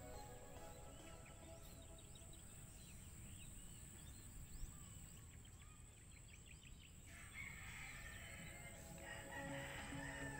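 Faint rural ambience: a rooster crowing, with small birds chirping briefly here and there.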